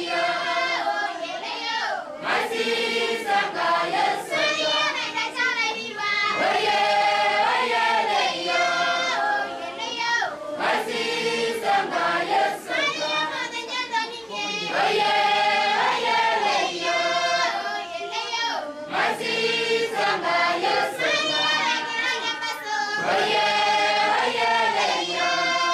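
A group of schoolchildren singing together, repeating a short melodic phrase over and over.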